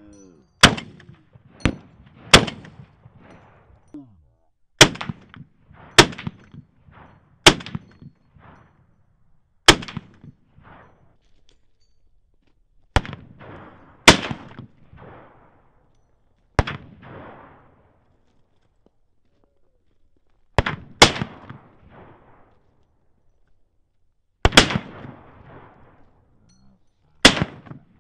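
About a dozen rifle shots fired one at a time at an irregular pace, each sharp crack followed by a short echo.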